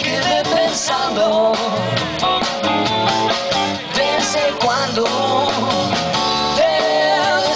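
A rock band playing live through a PA: electric guitars, bass, drums and keyboard together, with a bending, wavering melody line over the steady beat.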